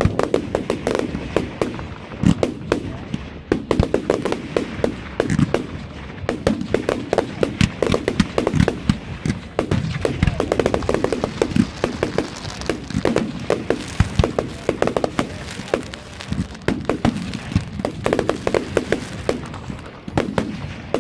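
Display fireworks going off in a continuous barrage: sharp bangs and crackles, several a second, with no break.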